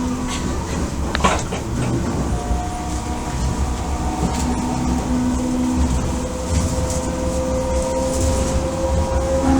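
Running sound inside an Odakyu 1000 series car, with the whine of its Mitsubishi GTO VVVF inverter and traction motors over wheel and rail rumble. The inverter tones hold steady, then climb slowly in pitch in the later seconds.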